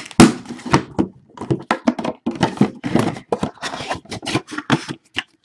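A hard trading-card box being handled by hand: a quick run of knocks, taps and scrapes as the box is picked up and moved, with the loudest knock just after the start.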